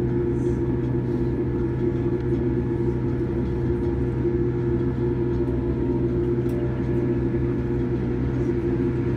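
Steady hum inside the cabin of a Boeing 787-8 airliner taxiing on the ground, its engines at idle, with a few faint clicks.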